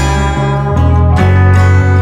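Background music: a song with plucked acoustic guitar over a steady bass line.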